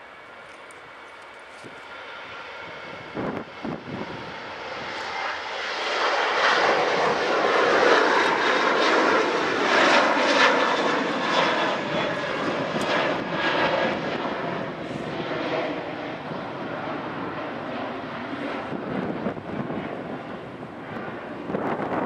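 Jet engine noise from an Airbus A380's four Rolls-Royce Trent 970 turbofans as the airliner moves along the runway. It is a dense roar with a faint whine in it, swelling to its loudest a few seconds in and then slowly fading as the aircraft passes.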